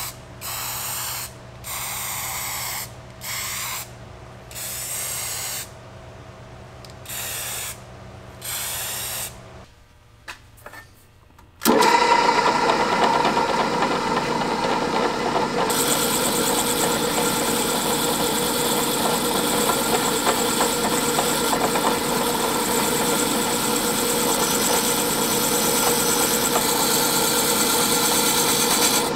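An aerosol spray can of filler primer hissing in about six short bursts. About twelve seconds in, a bench drill press starts up and runs steadily with a wire wheel, scrubbing small brass parts held against it in pliers.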